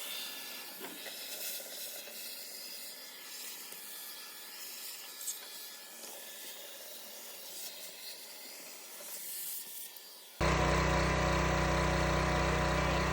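Milwaukee Packout shop vac sucking debris out of a tire machine: a steady hissing rush of air. About ten seconds in it cuts abruptly to a much louder steady run with a deep motor hum.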